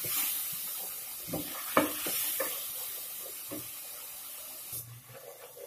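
Onion-tomato masala sizzling in hot oil in an aluminium pot as it is fried (bhuna), with a wooden spatula stirring and knocking against the pot a few times. The sizzle drops away near the end.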